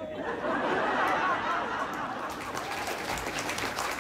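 Audience laughing, with clapping starting about halfway through and building into applause.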